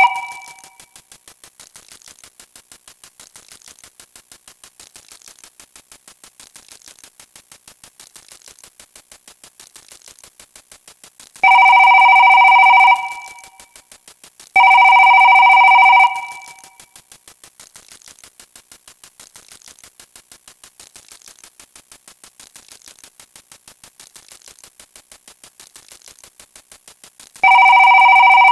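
Sound effects: a fast, even ticking, interrupted three times by a loud, steady ringing electronic tone about a second and a half long each. The first two tones come about three seconds apart, and the third starts near the end.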